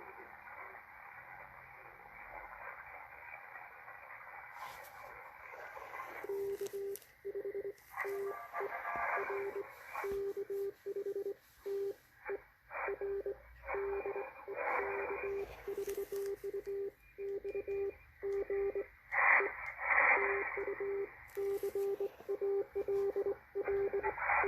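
Morse code (CW) signal received on shortwave through a Malachite DSP SDR receiver: a single low tone keyed on and off in dots and dashes. It starts about six seconds in, over steady receiver hiss, with a few short bursts of static.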